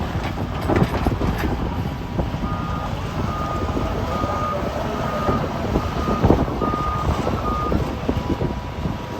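A construction vehicle's reversing alarm beeping about seven times, evenly spaced, starting a couple of seconds in, over the steady low rumble of heavy diesel machinery.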